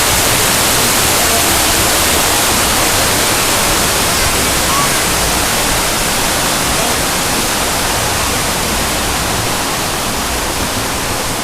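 Pool waterfall pouring steadily: a loud, even rush of falling water.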